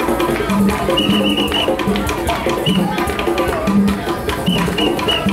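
Live hand-drum performance: skin-headed hand drums played in a steady, busy rhythm, with short high piping notes in quick runs about a second in and again near the end.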